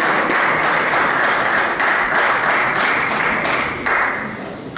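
Crowd applauding, many hands clapping at once, dying away about four seconds in.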